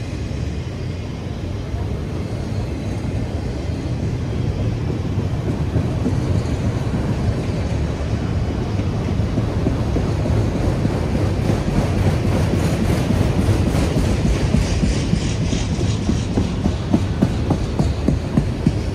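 Freight train of autorack cars rolling past: a steady rumble of steel wheels on rail. A higher hiss joins about twelve seconds in, and sharp wheel clacks come near the end.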